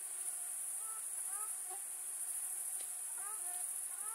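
Steady, high-pitched chorus of crickets, with brief chirping calls rising over it now and then.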